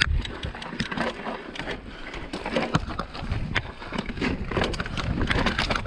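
Mountain bike rolling down a rocky downhill trail: tyres crunching over rock and loose stones, and the bike rattling and knocking irregularly as it hits the rocks, with a sharp knock right at the start.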